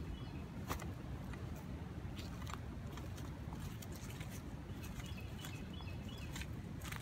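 Footsteps crunching through dry leaf litter and brush on a woodland trail, in an uneven walking rhythm, under a low rumble on the microphone. A few faint high bird chirps come through about five seconds in.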